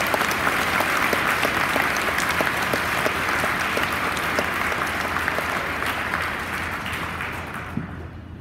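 Audience clapping in sustained applause that dies away near the end.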